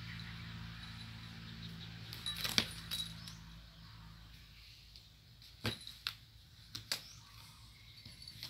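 Two cats play-fighting on a mattress: a handful of sharp clicks and taps as they swat and scrabble, over a low steady hum that fades out about halfway through.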